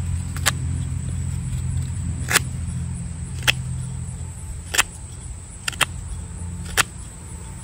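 Knife carving the tip of a cedar bow-drill spindle to a point: sharp, short cuts of the blade through the wood, irregular and roughly one a second. They sound over a steady low hum.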